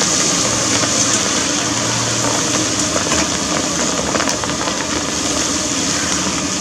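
Hot oil in a large wok sizzling steadily as food deep-fries, with faint scattered crackles over a low rumble.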